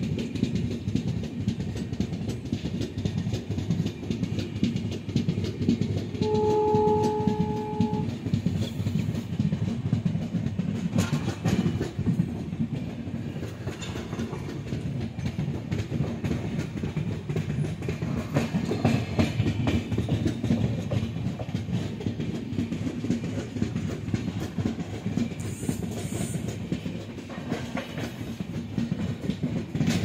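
Passenger train running at speed, heard from an open coach door: steady rumble with rapid wheel clatter over the rails. About six seconds in, a train horn sounds once in a single steady tone for about two seconds.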